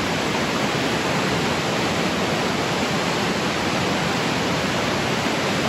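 Large waterfall tumbling down a rocky gorge, heard as a steady, loud rush of water with no change in level.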